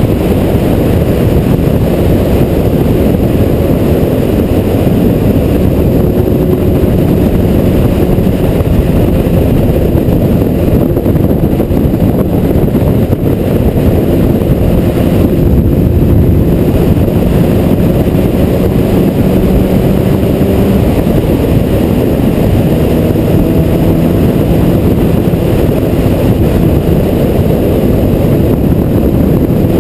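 Steady wind rush buffeting a GoPro mounted on a Honda CBR1000RR sportbike at cruising speed. Under it, the bike's inline-four engine drones evenly, its pitch drifting slightly with the throttle.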